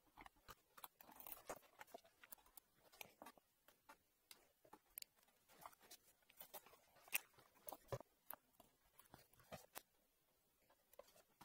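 Faint, irregular little clicks and crackles of a utility knife blade scoring a corrugated plastic (corflute) sheet, the loudest about seven seconds in.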